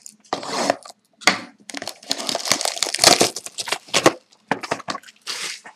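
Packaging of a sealed 2011-12 Panini Titanium hockey card box crinkling and tearing in irregular rustling bursts as the box is opened by hand.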